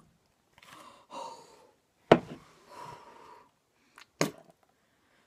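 A boy breathing and gasping in disgust while eating a green olive he hates, with a sudden loud gasp about two seconds in and a shorter sharp one about four seconds in.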